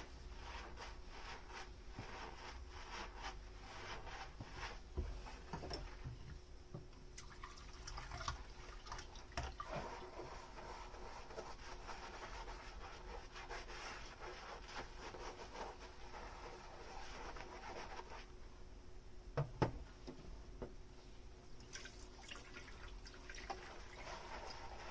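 Dishes being washed by hand at a kitchen sink: running and dripping water with many small clinks and knocks of dishware, and one sharper knock about two-thirds of the way through.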